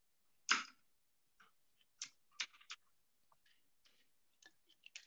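A short puff of breath-like noise, then faint scattered clicks and small mouth sounds as a water bottle is handled and drunk from close to a headset microphone.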